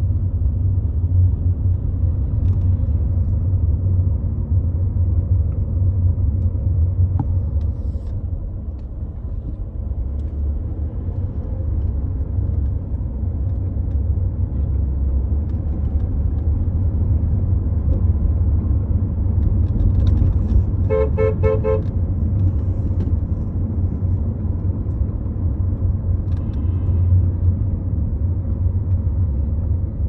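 Steady low road and engine rumble heard from inside a moving car, with a car horn sounding a rapid series of short toots about two-thirds of the way through.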